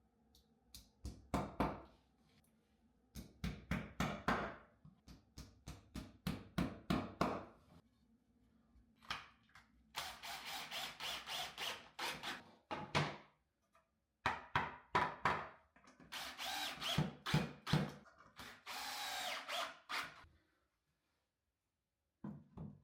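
A power drill run in a quick series of short trigger bursts, then in several longer runs of one to two and a half seconds each, with a brief burst near the end.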